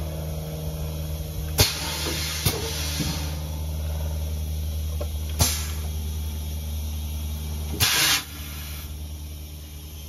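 Emmegi Itaca Solution Automatic corner crimper running through its cycle with a steady machine hum. Three sharp metallic clicks come as its pneumatic pressers and clamps move. Near the end a short burst of compressed-air hiss sounds, and the hum then drops quieter.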